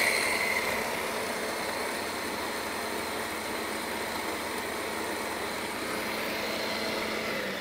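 Blender motor running at full speed, grinding soaked medjool dates and water into date paste. A high whine at the start eases off about a second in, and the motor then runs steadily.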